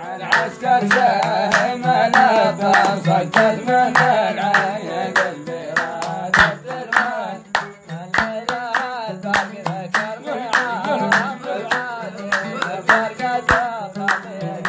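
A sharh song sung to oud accompaniment, with a steady, fast rhythm of hand claps at about three or four a second. The voice comes and goes over the oud.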